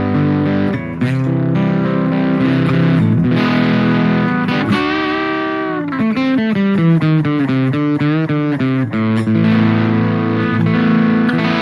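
Harley Benton ST80 FR HH electric guitar played with a distorted high-gain tone: held chords, then about halfway a note whose pitch sinks and climbs back, a quick run of single notes, and held chords again.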